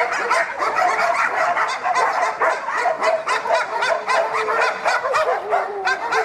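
A pack of dogs barking all at once, overlapping barks coming several times a second without a break. About five seconds in, a long held tone joins the barking.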